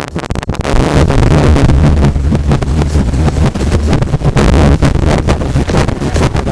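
Sanyo boombox playing back through its speakers, picked up as a loud, crackling, distorted rumble with a strong steady bass hum. The distortion comes from a microphone running on a weak battery. The sound jumps up about half a second in.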